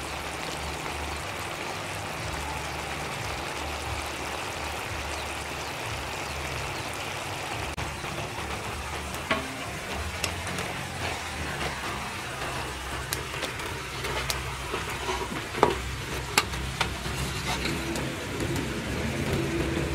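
Duck simmering in a pot of bubbling liquid, with a steady hiss and sputter. In the second half metal tongs click and clank several times against the aluminium pot and steel tray as the duck is lifted out.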